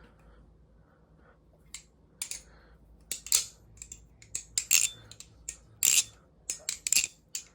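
Balisong (butterfly knife) being flipped: its metal handles clack and click against each other and the blade, in a run of sharp metallic clicks, single and in quick clusters, starting about two seconds in. It is flipped as a sound test of the knife's clack.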